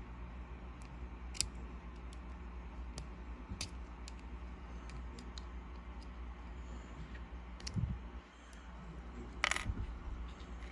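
Small metallic clicks and taps of Leatherman pliers working the C-clip retaining ring off the back of a lock cylinder's plug, with a louder clack near the end.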